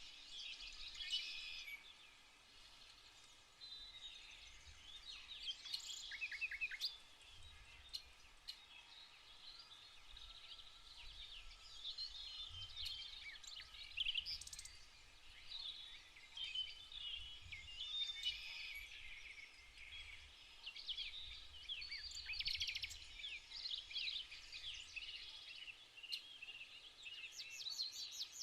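Several songbirds singing at once, a steady chorus of overlapping chirps and trills, with a faint low rumble underneath.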